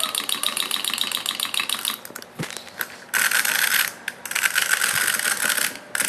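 Wind-up hopping toy's clockwork mechanism ticking rapidly and evenly, stopping about two seconds in. After a short lull comes a louder steady clockwork whirring, twice.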